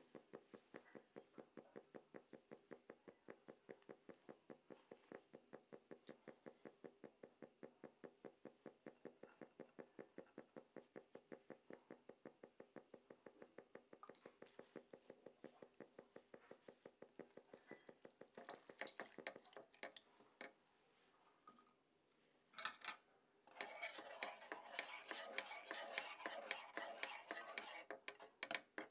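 Butter melting in a nonstick frying pan with a faint, fast, even ticking of about four or five a second. Over the last few seconds a wire whisk scrapes and stirs through milk in the pan, louder and rasping.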